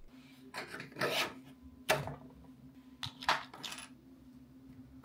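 Hard plastic clicks and rubbing as a 3D-printed PETG cable clip is fitted to the edge of a wooden desk and a USB cable is pressed into it. There are half a dozen or so short sharp clicks spread through, over a faint steady hum.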